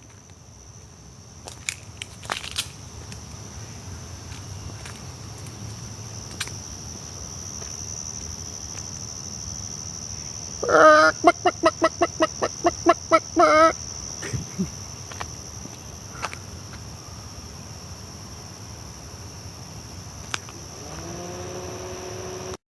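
Chicken-like clucking: a loud run of about a dozen quick squawks over about three seconds near the middle, with a steady high-pitched tone underneath throughout.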